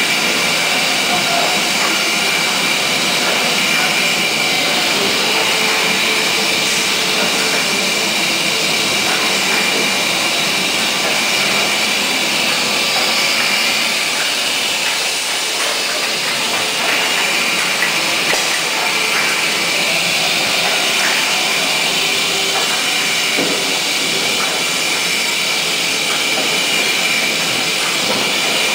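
Whisky bottling line running: a loud, steady hiss of machinery with a steady high whine and scattered faint clicks.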